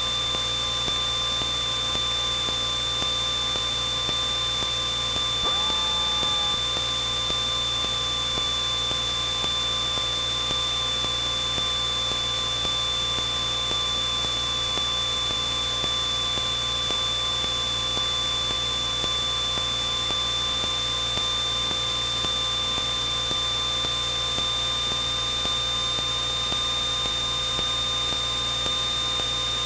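Steady in-flight cabin noise of a Cessna 172N: an even hum and hiss with a high, unchanging whine over it.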